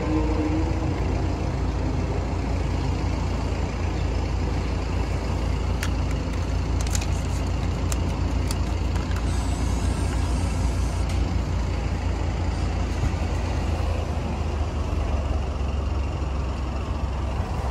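Steady low outdoor rumble, with a few faint clicks about six to nine seconds in as banknotes are fed into the vending machine's bill acceptor.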